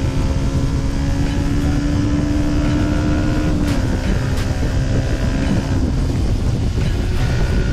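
Yamaha MT-125's single-cylinder engine, fitted with an Arrow exhaust, running at steady revs under heavy wind rush on the microphone. Its note dips slightly a little under four seconds in and fades beneath the wind a couple of seconds later.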